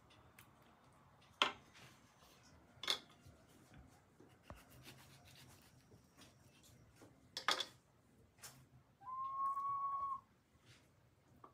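Spoon scraping and knocking against a pot and plate while beans are served, with a few sharp clinks about a second and a half, three and seven and a half seconds in. About nine seconds in there is a short, steady, whistle-like tone lasting about a second.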